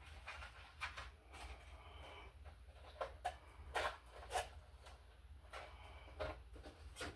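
Faint scattered clicks, knocks and rustles of hand work with tools and small parts, the sharpest knocks about four seconds in, over a steady low hum.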